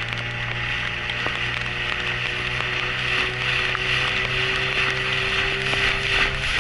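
Small boat's outboard motor running at a steady speed, with a hiss over it.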